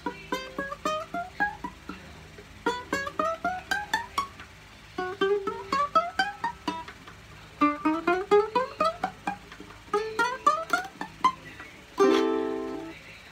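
Concert ukulele played fingerstyle: five short runs of quickly rising plucked notes with brief pauses between them, then a strummed chord about twelve seconds in, left to ring.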